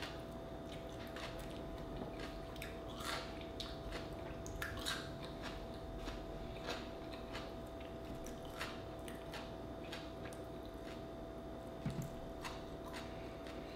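Faint scattered clicks and taps of oyster shells and a lemon being handled on a wooden cutting board, with a soft low knock about 12 seconds in as a glass sauce bottle is lifted. A faint steady hum runs underneath.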